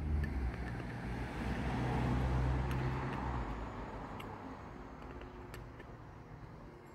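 A road vehicle passing by, its noise swelling to a peak about two seconds in and slowly fading away. A few faint clicks of a screwdriver working at a plastic chainsaw recoil starter pulley.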